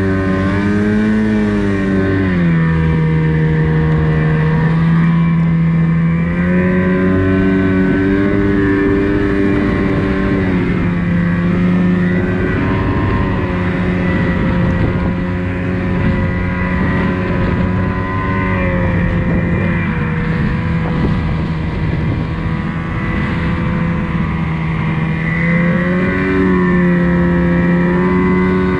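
Snowmobile engine running under load through deep powder snow, its note rising and falling several times as the throttle changes.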